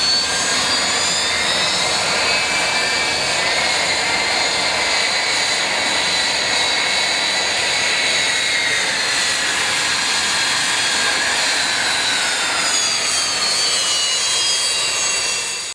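Aircraft engines running steadily, a rushing noise with a high turbine-like whine. The whine rises slightly in the first couple of seconds, holds, then slides down in pitch over the last few seconds.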